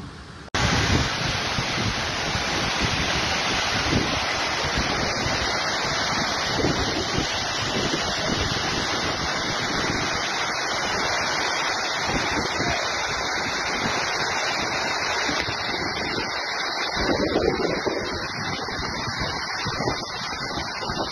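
Muddy floodwater rushing down a street in a steady, loud rush, with wind buffeting the microphone.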